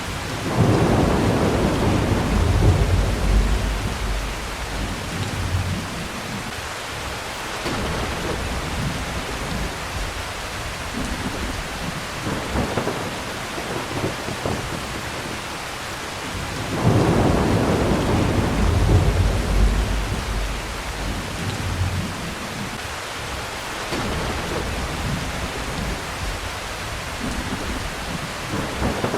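Heavy rain falling steadily, with two rolls of thunder: one starting just after the beginning and another a little past halfway, each rumbling low for about five seconds before fading back into the rain.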